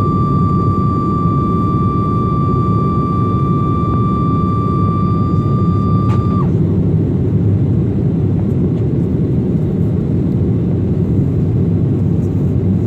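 Sukhoi Superjet 100 with its SaM146 turbofans at take-off power, a steady loud rumble of engines and airflow. A constant high whine runs over it and cuts off sharply about six seconds in, just after a faint click.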